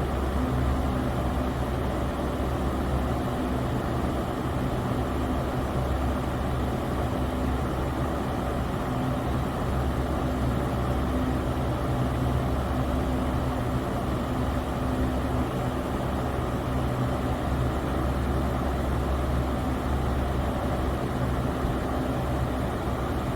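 Electric fan running steadily, a whooshing rush of air over a low motor hum.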